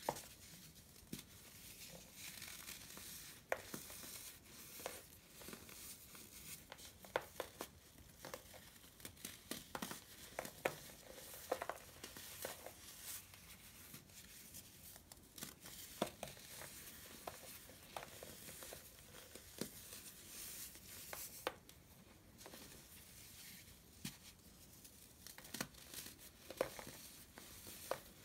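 Hands crushing and crumbling a pressed block of baking soda into powder: a soft gritty crunch with many scattered sharp cracks as chunks snap apart.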